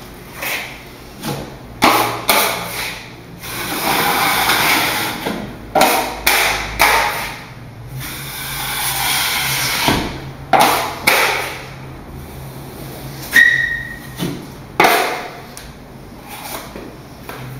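Steel taping knife scraping joint compound from a metal mud pan and spreading it onto drywall for a first coat: a run of short scrapes and clacks, with a few longer rasping smoothing strokes and one brief metallic ring about 13 seconds in.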